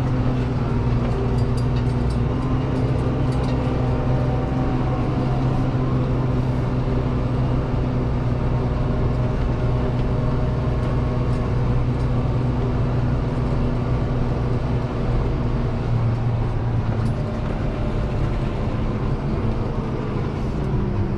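Deutz-Fahr 6185 TTV tractor's six-cylinder diesel engine running steadily at a constant speed, heard from inside the cab.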